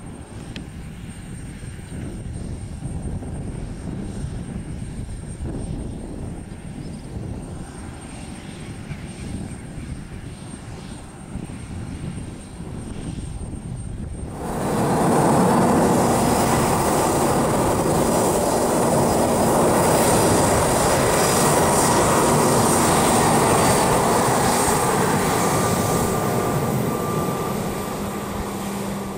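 Embraer 195 airliner's twin GE CF34 turbofans: a low distant rumble at first, then, about halfway through, a sudden jump to loud jet noise with a steady high whine as the jet runs at take-off power on the runway. The noise eases slightly near the end.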